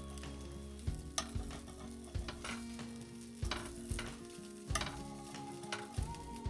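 A metal spatula scraping and tapping against a hot dosa griddle as it is worked under a dosa to loosen it, about ten sharp strokes at an irregular pace, over the steady sizzle of the frying batter.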